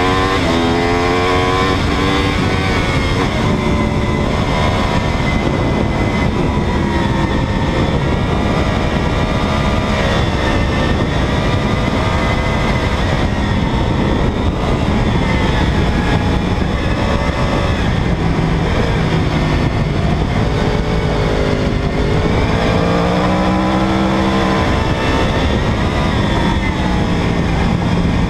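2009 Yamaha R1's crossplane inline-four engine running hard at speed: its pitch climbs steeply in the first couple of seconds, then holds high with gentle rises and falls as the throttle is worked, with another climb near the end. Heavy wind rush runs under it.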